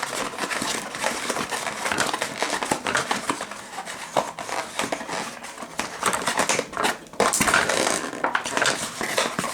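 Plastic toy packaging crinkling and rustling as it is handled and pulled apart, with many small clicks and snaps.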